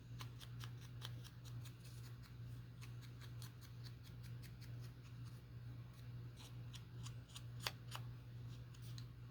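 Scissors snipping paper: a quick, uneven run of small crisp clicks, with one louder snap near the end.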